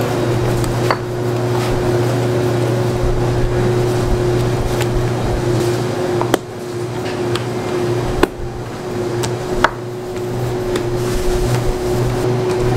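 A steady machine hum, a low drone with a held tone above it that starts to pulse near the end, broken by a few sharp clicks.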